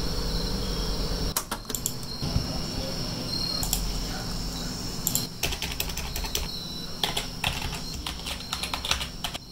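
Computer keyboard typing and mouse clicks: scattered sharp clicks, coming in quicker runs from about halfway through. A steady low hum and a thin high-pitched whine run underneath.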